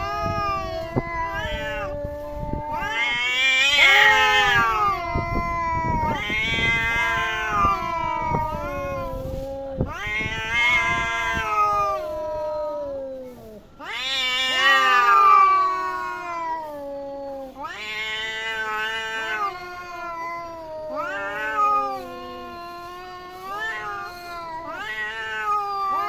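Cats yowling at each other in a fight standoff: a run of long, wavering yowls that slide up and down in pitch, one after another, loudest about four and fifteen seconds in.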